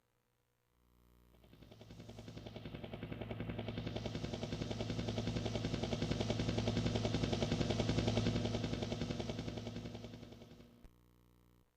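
A pulsing mechanical sound effect from a karaoke machine's built-in effect bank, a rapid even beat over a low hum that fades in, swells and fades away, like something passing by.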